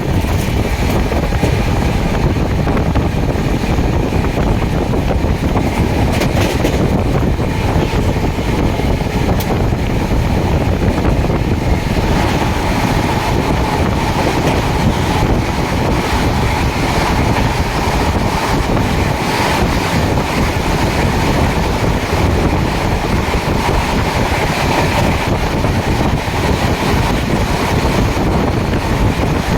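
Indian Railways train passing a level crossing: a steady, loud rumble and rush of the rolling train, with wind buffeting the microphone. About twelve seconds in, a faint higher ringing tone joins the rumble.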